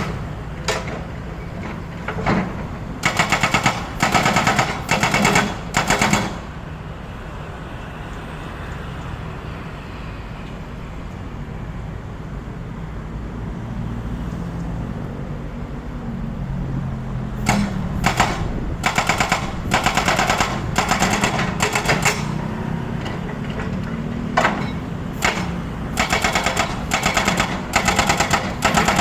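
Excavator-mounted hydraulic breaker hammering in rapid, machine-gun-like rattling bursts of one to three seconds. Between the bursts a steady engine drone carries on, with a long pause of about ten seconds in the middle.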